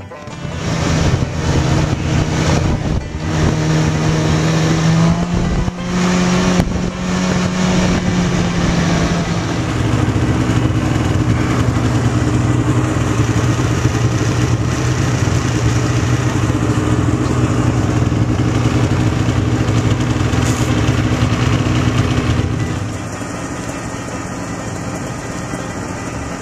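Snowmobile engine pulling away, its pitch stepping up over the first several seconds, then running steadily at cruising speed. It eases off and gets quieter near the end.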